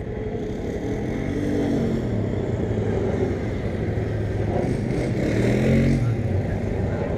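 Motorcycle engine running, its note rising and falling twice as the throttle is opened and closed, about a second in and again about five seconds in.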